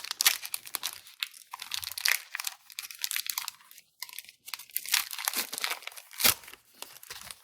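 A trading card pack's wrapper being torn open and crinkled by hand, a run of irregular crackles with a few sharper, louder ones.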